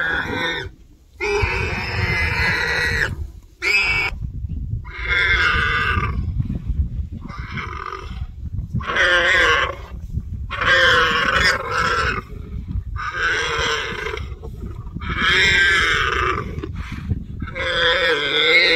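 Warthog squealing in long, wavering cries, one after another about every two seconds, as lions bite into it and eat it alive. Lions growl low beneath.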